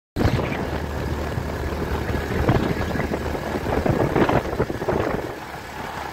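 Vehicle travelling along a road: a steady low engine hum under loud, uneven wind and road noise on the microphone. The sound cuts in suddenly just after the start.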